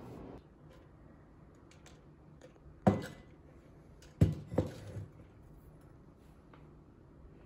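A hard vase knocking against a windowsill as it is handled: one sharp knock about three seconds in, then two more in quick succession a little over a second later, over quiet room tone.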